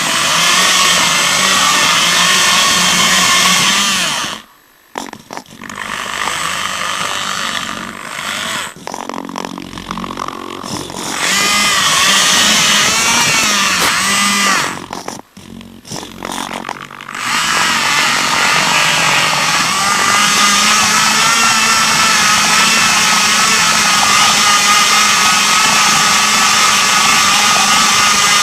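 FPV rover's drive motors whining as it drives, the pitch wavering with speed. The whine cuts out sharply about four and a half seconds in and again around fifteen seconds, then picks up again.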